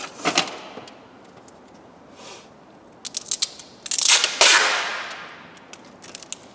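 Wide packing tape being pulled off its roll: a short rasp near the start, a rapid crackle about three seconds in, then a long, loud rip about four seconds in that fades out over about a second.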